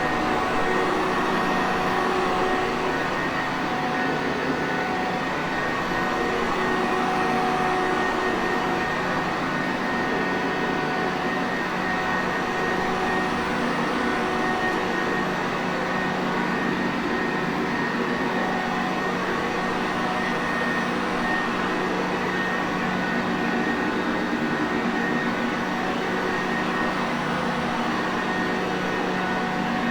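Sanitaire Perfect vacuum cleaner running steadily: an even motor whir and rush of air with a faint high whine over it.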